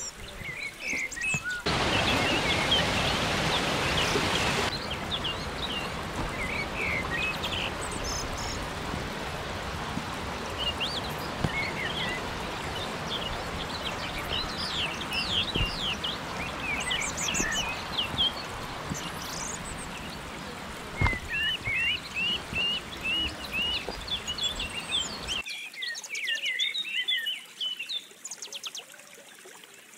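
Woodland birds singing and calling over the steady rush of a rocky stream. The water noise cuts out near the end, leaving only the birdsong.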